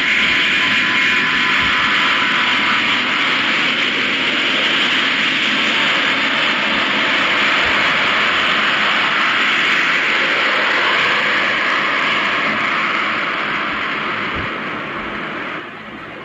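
Airbus A380's four jet engines at takeoff power: a loud, steady jet roar that slowly fades in the last few seconds, then drops off sharply just before the end.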